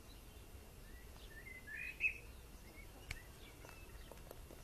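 A short, rising chirping bird call about two seconds in, then one sharp tap and a few light taps of a hen's beak pecking feed in a bowl, over faint background noise.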